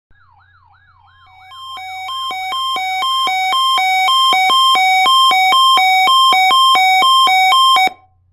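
Weather radio receiver's electronic alert siren, set off by the NOAA Weather Radio warning alarm tone test: a rapid up-and-down wail that switches after about a second and a half to a loud high-low two-tone warble, then cuts off abruptly near the end.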